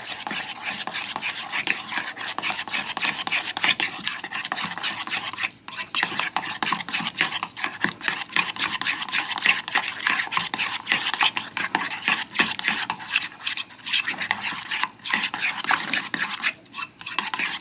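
A fork stirring a thick flour-and-water batter in a ceramic bowl: rapid, continuous scraping and tapping of the metal tines against the bowl, with a brief pause about six seconds in. The batter is being stirred until it is smooth and blended.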